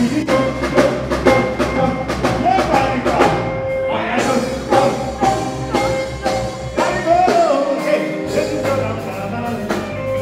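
Live music performance: a male singer singing into a microphone over a band with a steady drum beat.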